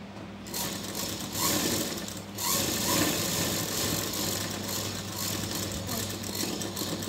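Sewing machine running as it stitches a seam. It starts about half a second in, pauses briefly around two seconds, then runs on until near the end.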